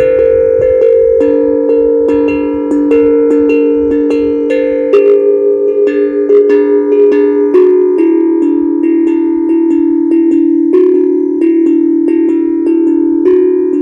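HAPI steel tongue drum, tuned to a pentatonic scale, played as a melody. It is struck in quick succession, and each note rings on and overlaps the next.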